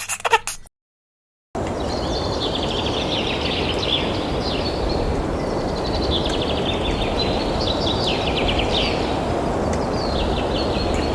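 Outdoor nature ambience: a steady rushing noise with small birds chirping and trilling over it in repeated runs. It starts suddenly after a short silence.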